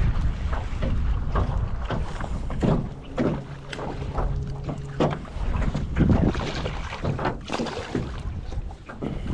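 Wind rumbling on the microphone, with scattered knocks and clicks of handling. A steady low hum runs for about two seconds midway.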